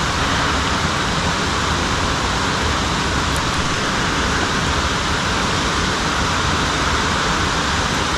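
A steady, even rush of falling water, with no change in level.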